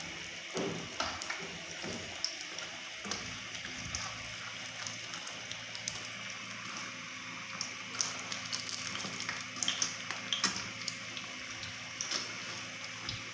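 Chicken vegetable rolls deep-frying in hot oil in a wok over medium heat: a steady sizzle with scattered pops and crackles, and occasional light clicks as metal tongs turn the rolls.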